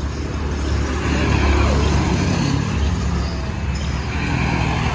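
Old off-road tour jeep's engine running as it drives, a strong steady low rumble that grows a little louder about a second in.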